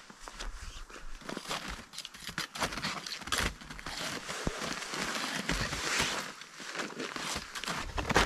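Snowshoes crunching in packed snow, mixed with nylon backpack rustling as the pack is handled and taken off; an uneven string of crunches and scuffs.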